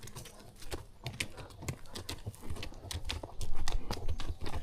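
Horses' hooves clopping in an uneven rhythm as they walk a trail, with a low rumble that swells for about a second past the middle.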